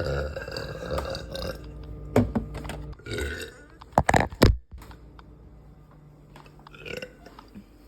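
A woman burping repeatedly, gassy from carbonated soda: a long burp at the start, then shorter ones, the loudest about four seconds in.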